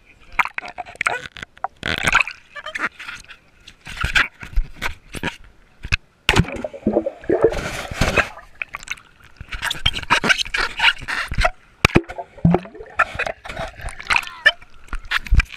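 Lake water splashing and gurgling around a waterproof action camera as it is dunked and moved in the shallows, with many irregular knocks and scrapes from the camera housing being handled.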